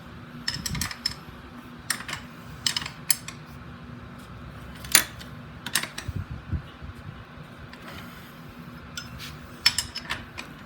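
Metal wrenches clicking and clinking irregularly on a bike's axle nuts as the wheel is tightened onto the frame, with one sharper click about halfway through.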